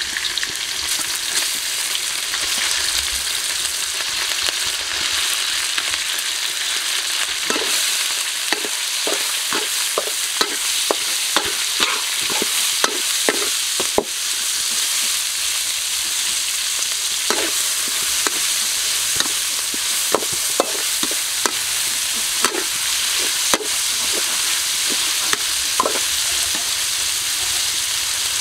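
Diced pork sizzling steadily in hot oil in a steel wok. From about seven seconds in, a metal spatula scrapes and knocks against the wok in repeated short, irregular strokes as the meat is stirred.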